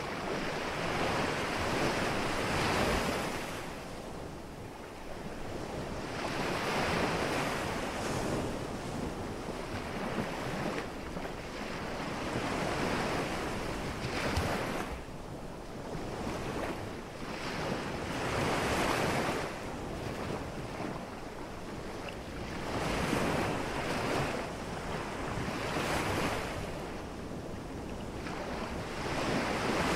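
Ocean surf: small waves breaking and washing up onto the shore, the rush swelling and fading every few seconds.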